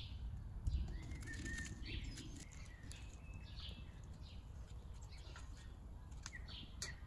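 Small birds chirping and calling in short high notes every second or so, over a low rumble that swells briefly about a second in, with a few faint sharp clicks.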